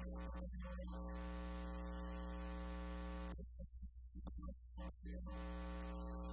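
Steady electrical buzz from the sound system: a strong low mains hum with a stack of even overtones, unchanging in pitch. It drops out for over a second about three and a half seconds in, then comes back.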